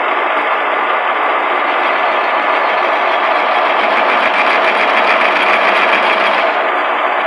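Metal lathe running with its spindle turning, the cutting tool chamfering the end of a rod. From about two seconds in until shortly before the end, a harsher, higher cutting noise joins the steady machine sound as the tool bites into the metal.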